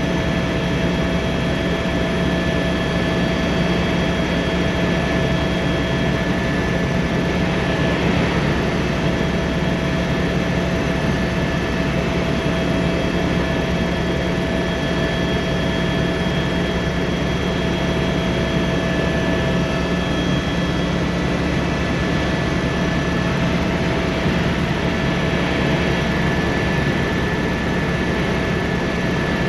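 Tour helicopter heard from inside the cabin in flight: a loud, steady rush of turbine and rotor noise, with several constant high whining tones over a low hum.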